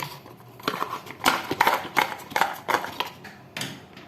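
Cube packaging and accessories being handled by hand: a run of crinkling rustles and small clicks.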